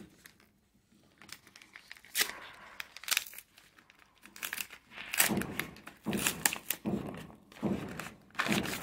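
Paper courier envelope being torn open and crumpled by hand, in short bursts of ripping and crinkling that start about two seconds in and grow busier toward the end.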